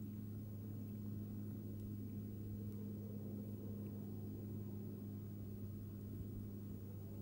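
A steady low hum at two fixed pitches, unchanging throughout, over a faint even rustle.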